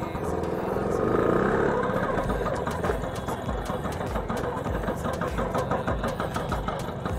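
Two-stroke engine of a 1980s Bajaj Super scooter pulling away under throttle, loudest about a second in. It then runs on steadily and a little quieter as the scooter rides off.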